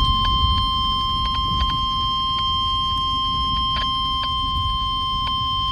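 NOAA Weather Radio warning alarm: one steady single-pitched tone of about 1050 Hz, sounding ahead of a new warning broadcast. Scattered clicks of radio static and a low rumble run under it.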